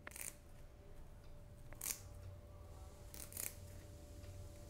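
Faint, crisp snaps and rustles of fresh curry leaves being plucked off their stems by hand, in a few short separate bursts.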